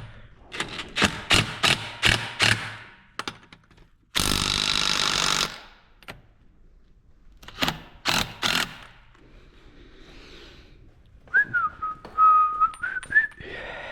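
Metal clanks of a socket and lug nuts being handled, a single burst of about a second from an air impact wrench on a lug nut about four seconds in, and more clanks. Near the end, a person whistles a short wavering tune.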